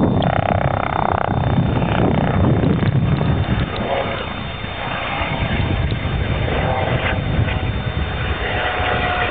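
Medical rescue helicopter approaching from a distance: a steady engine and rotor rumble mixed with wind noise on the microphone, with a faint whine coming through in the second half.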